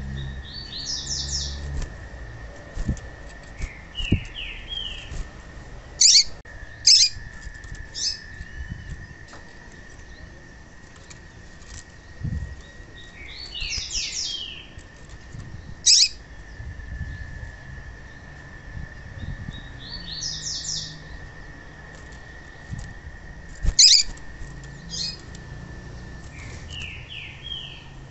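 Female papa-capim seedeater calling: groups of four or five quick descending high notes every few seconds, with short, sharp, loud chirps in between, single and in pairs, over a steady high tone. Light wing flutters and soft thumps as the bird moves about the cage.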